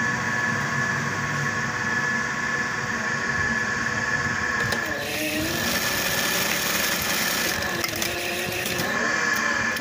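Juki industrial buttonhole sewing machine with its motor humming steadily. About five seconds in, it runs a buttonhole stitching cycle for about three seconds, then stops. This is a test buttonhole after the cutter plate has been fitted and set.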